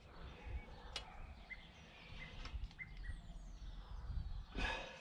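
Faint outdoor background with small birds chirping a few short high notes and one falling whistle. A sharp click comes about a second in, and a brief rustle near the end.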